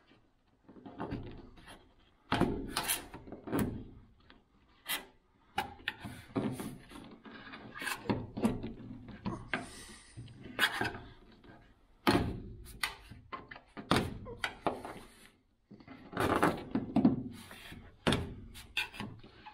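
A thin metal rod prying and rubbing around an old, dried rubber window seal, loosening it from the glass and the steel body: irregular scraping and rubbing with sharp clicks and knocks, some louder handling thunks among them.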